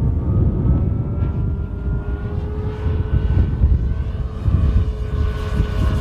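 Large electric RC aerobatic airplane (Slick 580 model) flying, its motor and propeller giving a steady whine that rises a little in pitch and eases off again. A low rumble of wind on the microphone runs beneath it.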